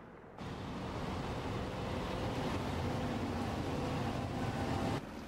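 Engine and road noise of a moving van heard from inside its cabin: a steady rumble that cuts in suddenly about half a second in and drops abruptly near the end.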